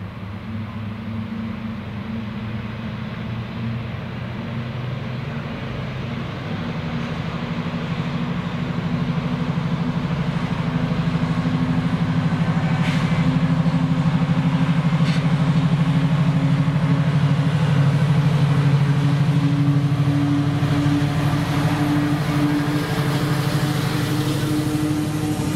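Diesel locomotive engine working hard under power. Its deep, steady engine note grows louder over the first half as the train approaches, holds at its loudest, then eases slightly near the end, with the upper tone rising a little in pitch.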